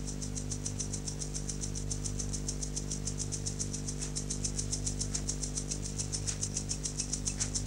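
Steady electrical hum with a fast, even, high-pitched ticking of about seven ticks a second.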